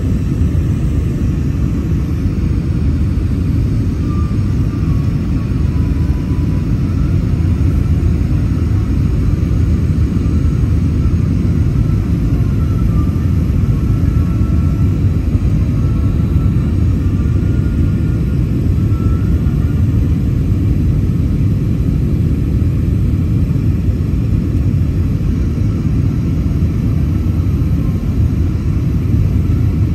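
Steady low rumble of engine and airflow noise inside the cabin of an Airbus A321-200 airliner during its descent, with a faint wavering whine over it through the first part.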